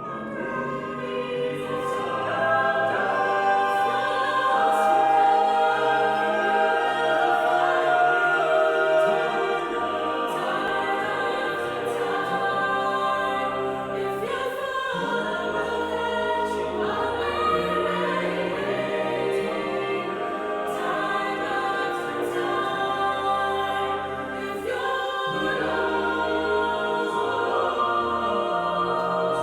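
Choral music: layered voices singing long, held chords, the harmony changing about halfway through and again near the end.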